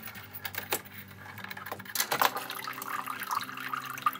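Mattel Polly Pocket Adventure Pool playset: the doll clatters down the plastic spiral track with a few clicks, triggering the toy's water-release mechanism. About two seconds in, a small stream of water starts pouring from the rock waterfall into the plastic pool, splashing.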